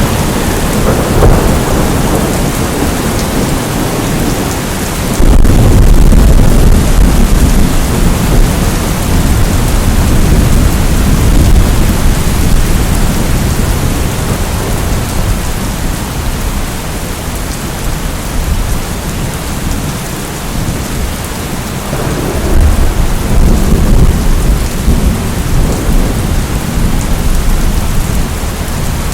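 Steady heavy rain with rolling thunder. A deep rumble of thunder comes in suddenly about five seconds in and slowly dies away, and another builds about three-quarters of the way through.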